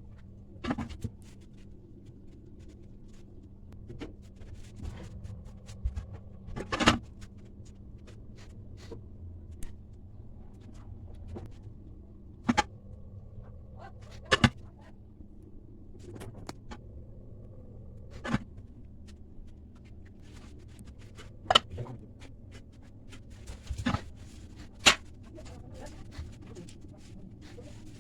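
Scattered sharp clicks and knocks, about a dozen at irregular intervals, of parts and tools being handled while an electric cooking pot is worked on, over a steady low hum.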